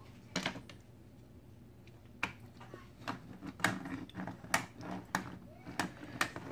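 Plastic toy trains being handled: a string of sharp plastic clicks and knocks, irregular and about a second apart, as an engine and its carriages are picked up and pushed against plastic track.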